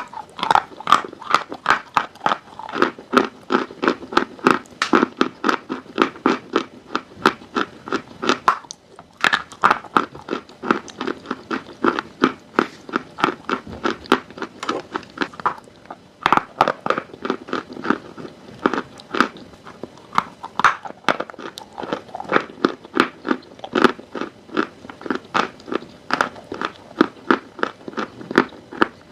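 Close-up chewing of dry chalk: rapid, steady crunching bites, about two or three a second, with two brief pauses.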